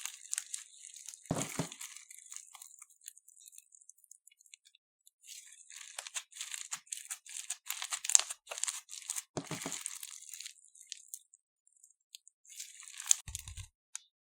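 Crunchy floam slime, clear glue packed with foam beads, being worked by hand: irregular bursts of fine crackling and popping from the beads, with a dull thud three times.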